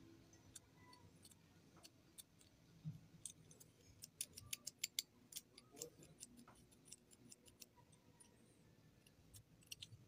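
Faint ticks and light scrapes of a thin metal scribe against a brass knife cross guard as it traces the edges of the guard's slot, coming in a quick run of clicks around the middle and a few more near the end.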